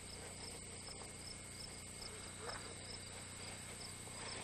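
Crickets chirping: a steady high trill with short, regular chirps about twice a second, over a faint low hum.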